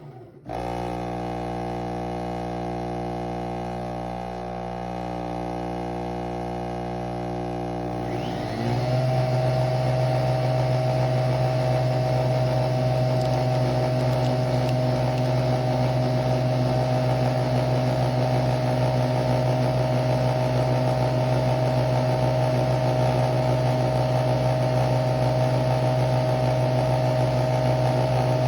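Nespresso Vertuo Pop+ coffee machine running a brew cycle: a steady motor hum that steps up to a louder, stronger hum about eight seconds in, and then holds steady.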